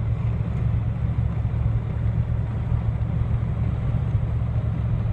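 Steady low drone of a car heard from inside its cabin.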